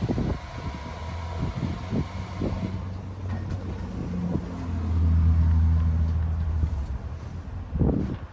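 Hair dryer blowing air into an inflatable pool, a steady rushing hiss with a faint whine that drops back about three seconds in. A low steady hum continues under it, loudest near the end, with a few soft knocks.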